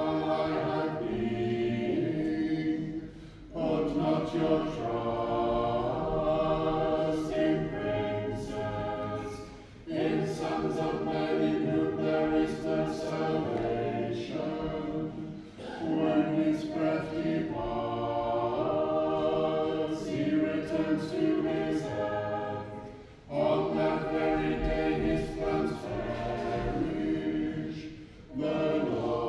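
Choir singing unaccompanied Orthodox liturgical chant in phrases of several seconds, with short breaks between them.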